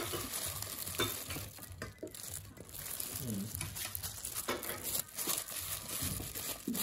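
Plastic-gloved hand scooping and tossing wet chopped chives in a plastic colander, a soft, irregular rustling and crinkling with light clicks.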